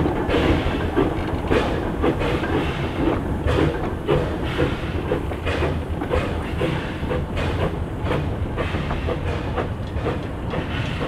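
Narrow-gauge steam train running, with a steady rhythmic beat of about two a second over continuous running noise.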